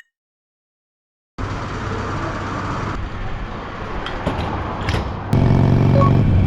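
Harley-Davidson Sportster 883 motorcycle running on the road, its engine hum mixed with wind noise, after a second and a half of silence at the start; the sound gets clearly louder about five seconds in.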